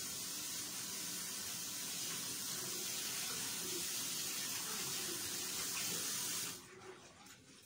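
Washbasin tap running water into the sink in a steady hiss, starting suddenly and shut off about six and a half seconds in.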